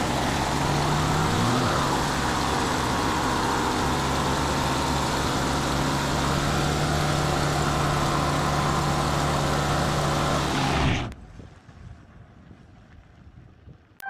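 1982 GMC pickup's 350 small-block Chevy V8 running at high revs while the rear tire spins on the pavement in a smoky burnout, with a loud, hissing screech of tire over the engine. The pitch rises early on and then holds steady, and the sound cuts off suddenly about eleven seconds in.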